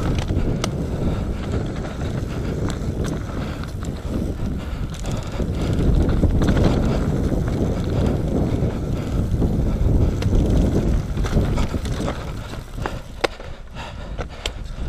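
Nukeproof Mega 275 enduro mountain bike descending a dirt trail at speed: a continuous rumble of tyres and air over the microphone, broken by many sharp clicks and knocks from the bike rattling over bumps. It goes a little quieter for a couple of seconds near the end.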